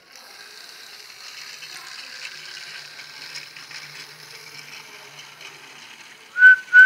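Battery-powered toy Thomas the Tank Engine running along plastic track, its motor and gears making a steady ratcheting whirr. Near the end come two short, loud high-pitched toots about half a second apart.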